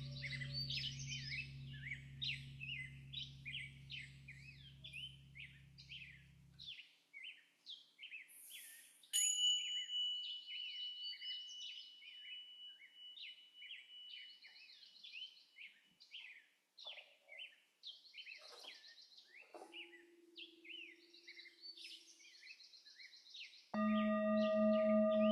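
Birds chirping continuously over a low steady drone, which cuts off abruptly about seven seconds in. A high, clear ringing tone starts about nine seconds in and fades slowly. Near the end a singing bowl starts with a loud steady tone and overtones.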